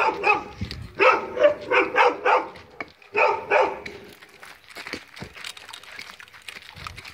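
A dog barking repeatedly in short clusters of barks over the first four seconds, then falling quiet.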